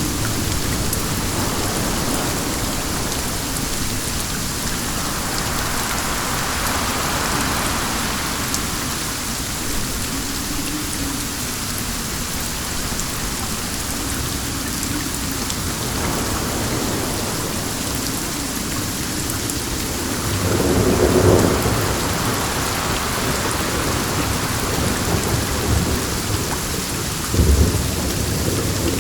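Steady rain with wind. A low rumble swells about two-thirds of the way through, and a shorter, sharper low rumble comes near the end.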